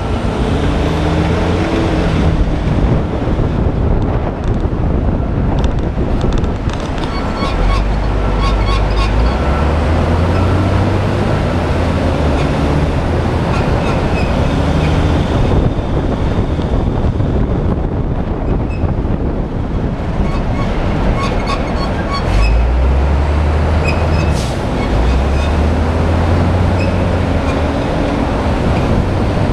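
Car driving on a highway: a steady rumble of tyres and wind with passing traffic. The rumble swells heavier twice, and engine notes rise and fall at times.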